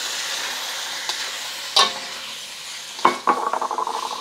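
Beef and sauce sizzling in a hot wok while being stirred, the sizzle slowly easing. A utensil knocks sharply against the wok twice, then rattles against it quickly near the end.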